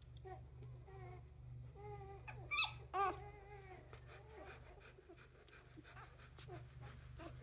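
Adult dog whining in high, wavering calls, with two louder, sharper yelps about two and a half and three seconds in.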